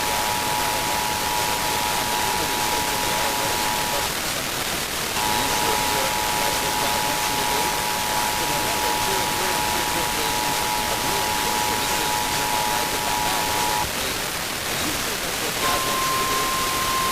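EAS two-tone attention signal, two steady tones sounding together over heavy radio static. It breaks off for about a second about 4 s in, resumes, and stops about 14 s in. Near the end a single steady, slightly higher tone starts: the single-tone weather-radio warning alarm.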